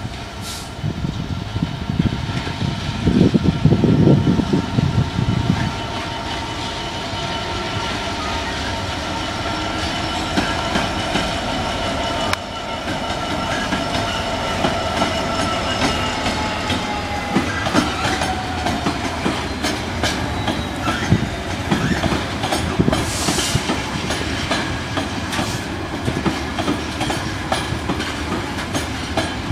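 Class 66 diesel freight locomotive 66147, with its EMD two-stroke V12 engine running, moves slowly past with a train of flat wagons loaded with concrete sleepers. The wheels click over the rail joints, and a steady high squeal falls slightly in pitch about halfway through. There is a loud low rumble about three to five seconds in.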